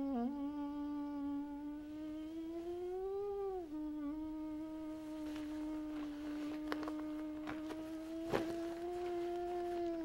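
A person humming one long, wavering note in thought. The pitch swells up and drops back about three and a half seconds in, then holds level. A few faint clicks and one sharper tap come in the second half.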